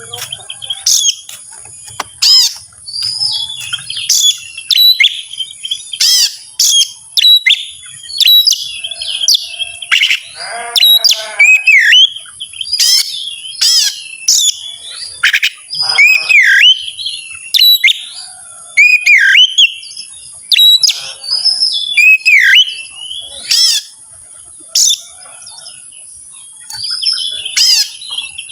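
Oriental magpie-robin (kacer) singing loudly and continuously: a varied run of sharp chips, whistles and down-slurred notes with mimicked phrases from its learned repertoire.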